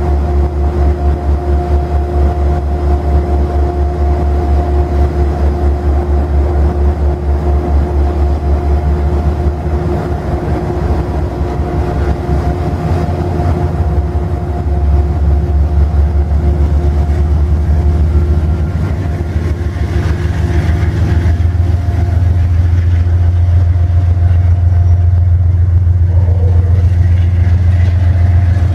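Amtrak GE Genesis diesel locomotive engine running, with a pulsing low beat and a steady whine on top. The engine note rises about halfway through and stays loud and smoother toward the end as the locomotive throttles up to pull away.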